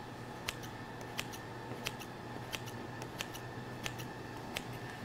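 Kitchen scissors snipping repeatedly through soft, filled bread dough: about seven short, faint snips, one roughly every two-thirds of a second, as a rolled dough log is cut almost through in a row of evenly spaced cuts.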